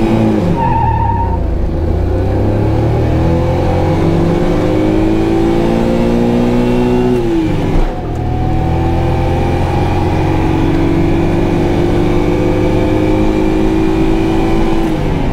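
A 40-year-old Maruti 800's 796 cc three-cylinder engine at full throttle, heard from inside the cabin. It climbs in pitch for about seven seconds, drops sharply at a gear change about halfway, then pulls up again more slowly in the next gear.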